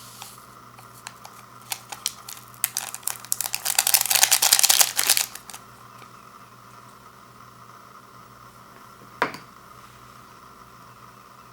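Plastic instant-ramen packet being handled: a few crinkles, then a couple of seconds of dense crinkling, then still except for one short sound near the end.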